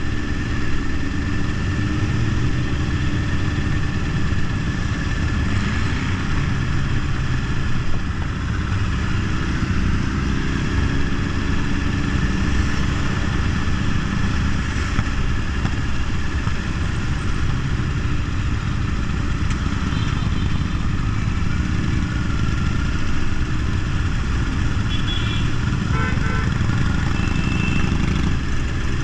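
Motorcycle engines running steadily while riding in a group, the rider's own bike mixed with the engines of the motorcycles around it, over a steady low rumble.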